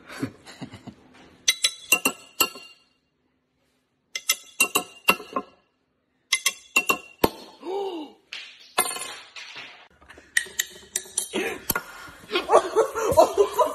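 Glass beer bottle tapped in three quick runs, each tap a sharp clink with a short ringing tone. Near the end a louder jumble of sound takes over.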